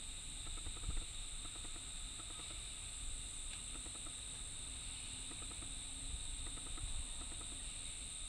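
Insects droning steadily in a constant high-pitched chorus, with faint small chirps and a low rumble underneath.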